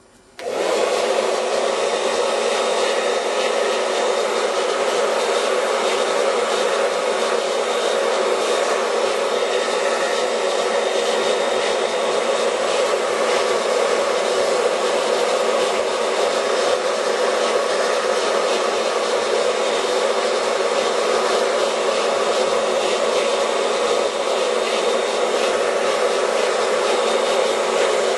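Handheld hair dryer switched on about half a second in and blowing steadily at full power: a loud, even rush of air with a steady hum in it, warming a phone's newly refitted touchscreen to soften and set its adhesive.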